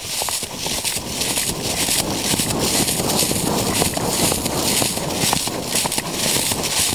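Horse cantering, its hoofbeats in a steady rhythm of about two strides a second, under heavy wind buffeting on the microphone that gets louder about a second in.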